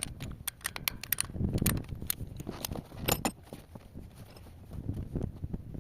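Irregular metallic clinks and knocks of hand tools and metal parts being handled on a diesel engine while its fuel injectors and injector lines are being changed, with a few heavier dull knocks about one and a half and three seconds in.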